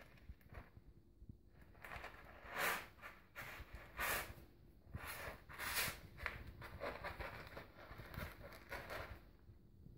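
Cat digging with its paws in Cat's Best Eco wood-fibre pellet litter in a plastic litter box: a series of gritty scratching and raking strokes, the loudest few in the middle, dying away near the end.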